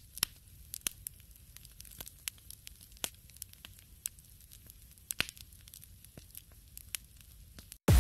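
Crackling fire sound: irregular sharp pops and snaps over a low rumble, cutting off suddenly near the end.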